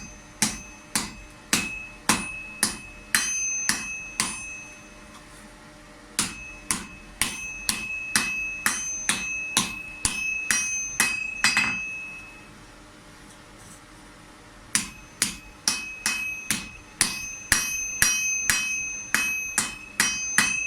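Blacksmith's hand hammer striking heated steel on an anvil at about two ringing blows a second, in three runs broken by short pauses, as a garden-tool part is forged.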